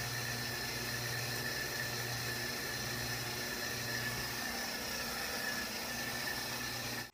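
Steady background hiss with a low electrical-sounding hum and a thin high whine underneath. There are no distinct events, voices or footsteps.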